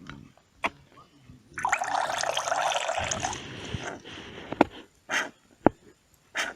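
Water squirting out of a squeezed bath toy into the bath, a rush of about two seconds that tails off, followed by a few small knocks and drips.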